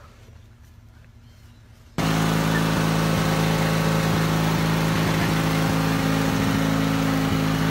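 A motor starts suddenly about two seconds in and runs at a steady speed, then winds down in pitch near the end.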